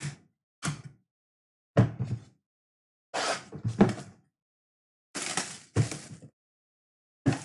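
Cardboard trading-card boxes being handled, slid and set down on a table: about seven short knocks and scuffs, separated by silence.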